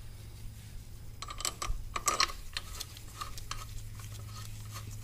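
Small clicks and scrapes of a screw and hand tool against a carbon-fibre brake duct bracket on a motorcycle's front brake caliper as the duct is fitted. The clicks come in a cluster starting about a second in and thin out after about three and a half seconds, over a steady low hum.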